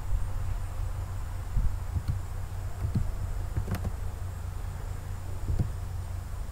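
Steady low electrical hum from the recording setup, with a handful of light clicks from keyboard typing and mouse clicks, the sharpest a little before the middle.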